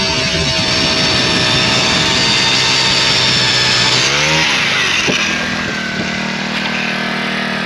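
A small engine running. About four seconds in its pitch drops and comes back, then it settles into a steady hum.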